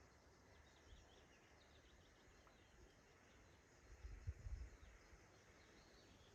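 Very faint forest ambience with faint, scattered high bird chirps. A low rumble swells up about four seconds in and fades after a second.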